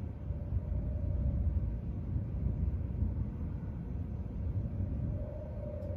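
A low, steady rumble with no sharp cracks.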